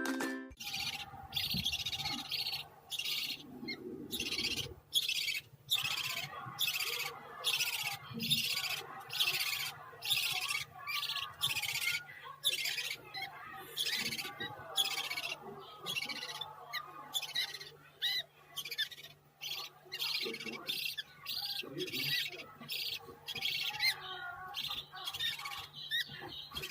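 Parakeet chick giving rasping begging calls over and over, about two a second, as it begs to be hand-fed.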